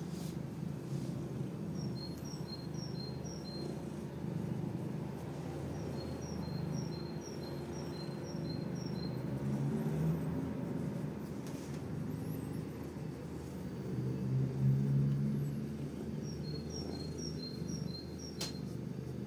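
A songbird outside the open window singing a repeated two-note phrase, a higher note then a lower one. It sings in three short runs of about five pairs each, over a steady low rumble of outdoor background noise. A single sharp click comes near the end.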